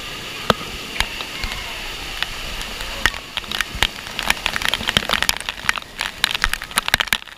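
Water from a grotto waterfall falling onto an action camera: a steady rush of falling water, then from about three seconds in a dense patter of sharp drop hits on the camera housing, which stops just before the end.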